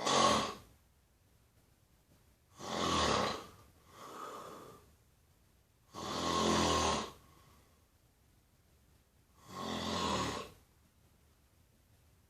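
Snoring: four loud snores about every three seconds, the second followed a second later by a softer breath.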